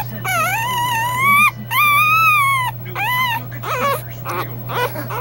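A two-day-old puppy crying in high, long whines that rise and arch over, each held about a second, followed near the end by a run of shorter squeaks.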